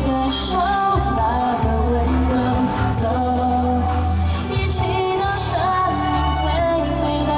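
A woman singing a song live into a microphone over amplified backing music with a strong, steady bass.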